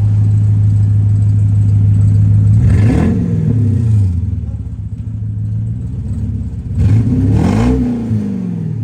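Toyota 1UZ V8 engine in a Lexus SC being driven hard. It runs steady and loud, then revs up and drops back twice, about four seconds apart.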